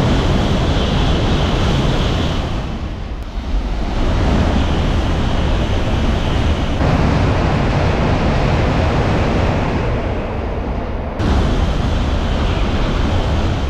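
N700-series Shinkansen trains passing through stations at high speed: a loud, steady rush of air and wheels on rail. Several passes are cut together, so the sound jumps abruptly about 3, 7 and 11 seconds in, with a higher hiss riding on top during the first and last passes.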